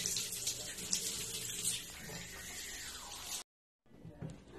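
Tap water running into a bathroom sink as hands are rubbed and rinsed under the stream; the sound stops abruptly about three and a half seconds in.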